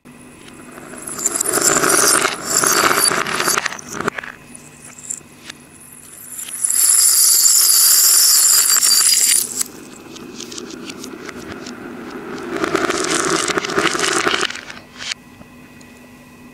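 Small metal jingle bells and plastic beads rattling and clattering against a wooden bowl and floor in three bursts. The middle burst is the loudest and highest, a bright jingling of the bells as a bowlful spills.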